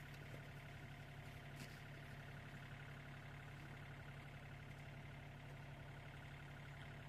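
Mini excavator's diesel engine left idling, a faint steady hum with no change in speed.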